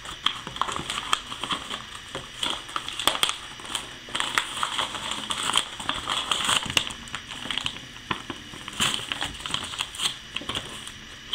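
Paper mailer envelope and the packaging inside it crinkling and rustling as they are handled and opened, with many short sharp crackles and clicks.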